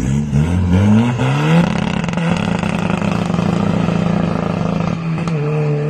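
Volkswagen Golf Mk4's 1.9 TDI turbo-diesel engine revving up as the car pulls away, its pitch rising for about a second and a half and then holding steady. The pitch steps slightly near the end.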